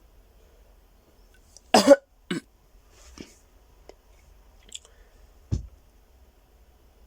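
A person coughing: a loud, sharp double cough about two seconds in, followed quickly by another, then a few fainter coughs or throat sounds and a low thump about five and a half seconds in.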